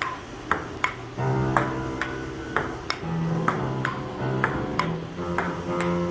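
Background music: a bright plucked ping repeating about twice a second, with held low chords coming in about a second in.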